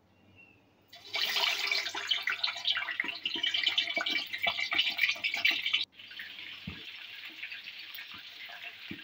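Chicken legs and thighs going into hot cooking oil in a pan, which breaks into a loud, crackling sizzle about a second in. After a break near six seconds, the chicken is deep-frying with a quieter, steady sizzle.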